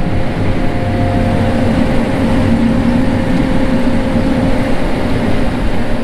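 A combine harvester running, heard from inside its cab: a steady engine and machinery drone with a faint constant whine. The machine is turning at the field's end with its corn head raised.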